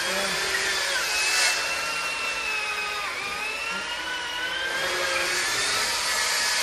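Heavy electric drill with a long bit boring down into timber, running steadily. Its whine sags about three seconds in as the bit bites into the wood, then climbs back.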